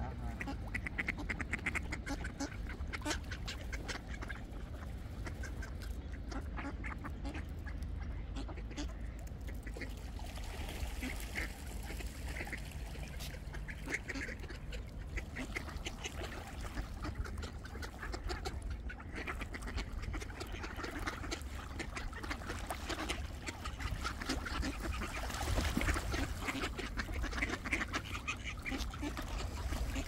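A flock of ducks quacking repeatedly while being fed, many short calls overlapping, over a low steady rumble.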